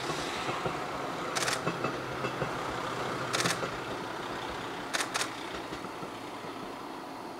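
A steady vehicle engine hum, with four short sharp clicks over it, the last two close together.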